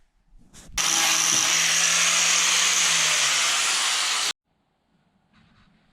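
Handheld power tool running steadily for about three and a half seconds on the rust spot of the door's sheet metal: a loud grinding hiss over a low hum, cutting off abruptly.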